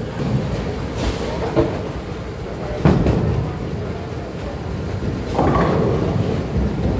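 Bowling alley: bowling balls rumbling along wooden lanes, with a sharp thud of a ball meeting the lane about three seconds in and a louder clatter of pins about five and a half seconds in.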